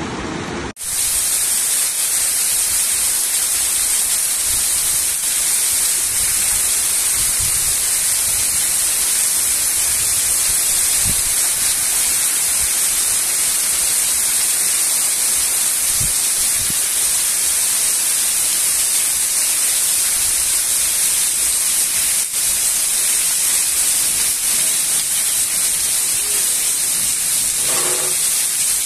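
Heavy tropical rain pouring down, a loud steady hiss that starts abruptly about a second in.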